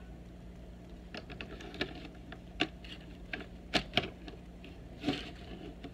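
Light irregular clicks and taps of a makeup brush and plastic eyeshadow palettes being handled on a tabletop, about a dozen over a few seconds.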